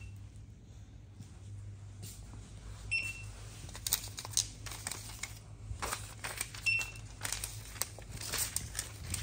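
Packaging or sheeting crinkling and rustling as it is handled, in clusters of sharp crackles. A short high electronic beep repeats about every three and a half seconds over a steady low hum.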